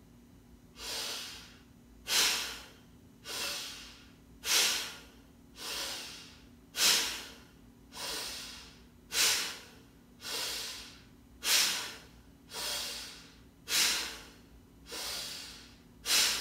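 A woman's rhythmic, forceful chest breathing in a pranayama exercise: sharp, loud breaths alternate with softer ones, about one a second, so each in-and-out cycle takes a little over two seconds.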